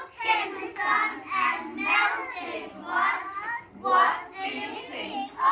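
Group of young children singing a song together in unison, in short repeated phrases.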